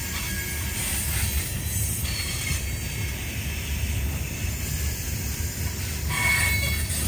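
CSX coal hopper cars rolling past on the rail, a steady rumble of steel wheels on track, with a brief higher wheel squeal about six seconds in.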